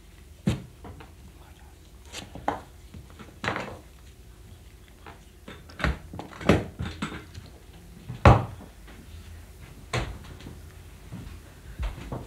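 About ten sharp wooden knocks and clacks at uneven intervals at a station ticket counter, with the short echo of a small room. The loudest comes a little past the middle.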